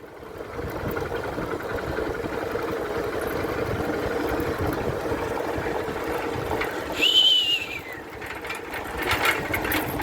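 A small engine running steadily, with a single high whistle that holds and then falls away about seven seconds in.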